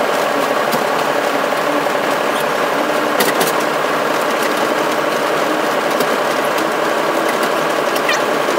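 Steady mechanical running noise of a locomotive heard inside its cab, with a couple of sharp clicks.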